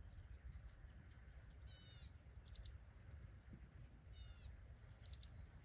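Faint outdoor ambience: small birds give short high chirps a few times over a low rumble of wind.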